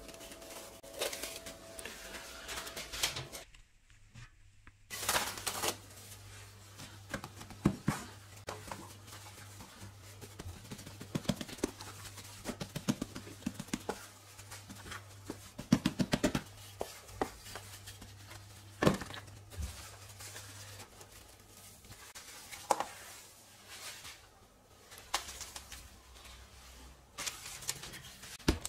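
Cling film crinkling and tearing as it is stretched over a glass bowl, then scattered soft taps and rustles of dough being pressed out by hand on a floured counter and a block of butter being handled on paper.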